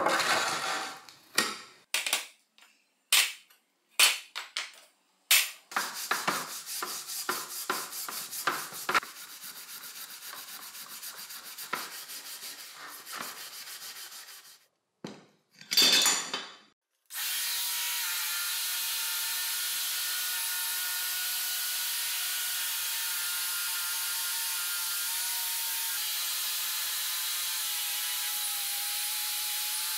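Knocks of parts being handled, then fast hand-scrubbing strokes of a scouring pad on the cast-aluminium drill housing. A little past halfway an angle grinder with a wire wheel starts and runs steadily, brushing the housing, a steady hissing whir with a held motor tone.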